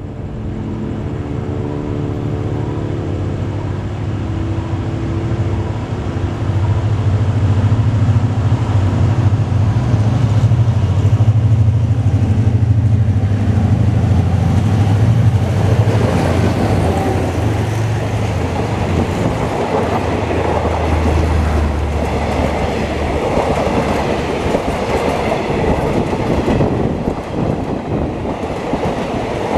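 A State Railway of Thailand diesel locomotive hauling a passenger train approaches and passes, its engine's low drone growing louder for about twenty seconds. From about halfway through, the carriages take over with a steady rushing clatter of wheels on rail.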